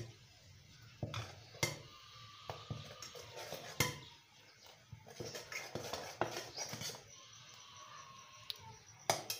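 A metal ladle clinking and scraping against a metal pot as boiling milk tea is stirred and ladled, with a few sharp knocks about a second in, around four seconds in and near the end.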